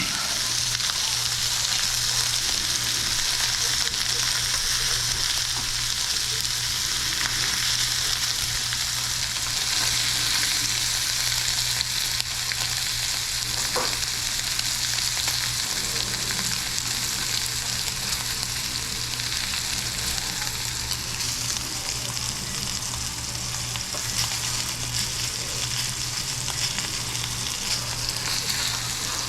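Tomahawk roast searing in oil in a smoking-hot cast-iron pan: a steady, even sizzle throughout, with a low steady hum underneath.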